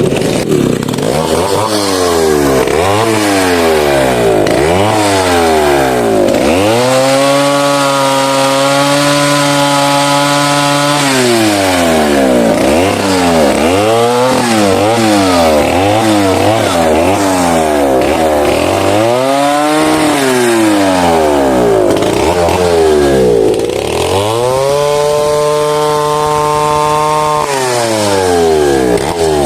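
Two-stroke chainsaw engine revving up and dropping back again and again. Twice it holds at high speed for a few seconds.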